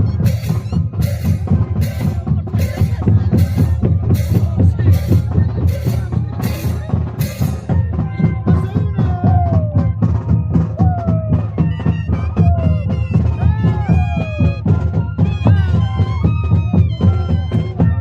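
Moseñada music: a troupe of large moseño cane flutes with drums, a heavy low sustained tone under sharp drum strokes at about two a second. About eight seconds in, the sharp strokes stop and sliding, swooping melody notes come forward over the low tone.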